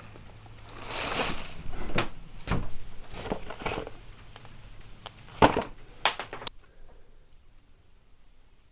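Someone rummaging through containers of hardware, looking for nuts: rustling, clattering and knocks, with three sharp clicks around five to six and a half seconds in, then quiet.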